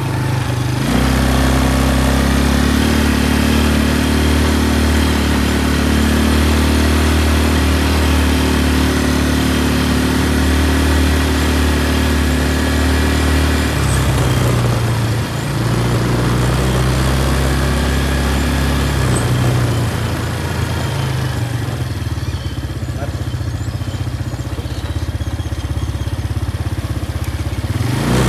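Quad bike engine running under way, a steady engine note with road noise, changing pitch briefly about halfway through and then settling lower and quieter as the quad slows near the end.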